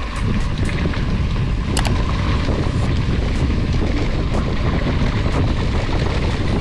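Wind buffeting the microphone of a camera on a mountain bike speeding downhill, mixed with the tyres rumbling over a loose dirt track. A few short clicks and rattles from the bike come through, one plainer about two seconds in.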